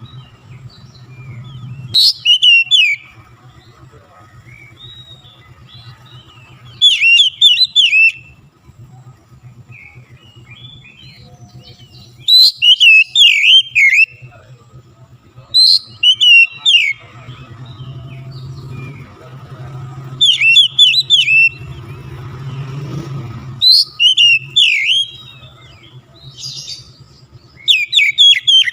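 Oriental magpie-robin (kacer) singing vigorously: loud phrases of rapid whistles and chirps, each lasting a second or two and repeated every few seconds, with softer calls in between.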